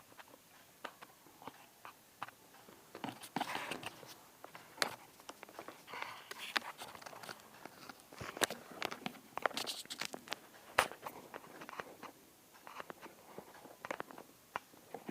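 Irregular clicks, taps and short rustles in a small room, busiest through the middle.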